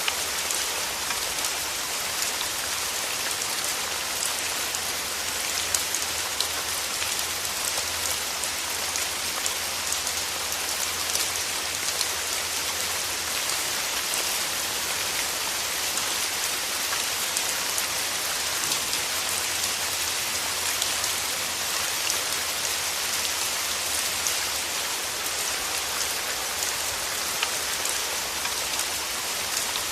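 Steady rain falling, a dense even hiss of drops with many small sharp patters on a surface.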